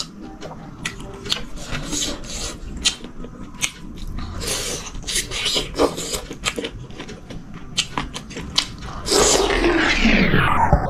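Eating by hand from a metal tray: fingers scraping and mixing rice and food against the tray, with scattered clicks and light scrapes. From about nine seconds in, a louder whooshing sound sweeps down in pitch and then back up.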